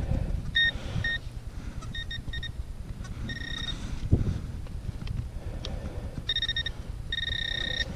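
Handheld metal-detecting pinpointer beeping as it is pushed through the dug soil: short beeps all at the same pitch, single and in quick groups, then longer held tones near the middle and at the end, signalling metal close to its tip. A low rumble runs underneath.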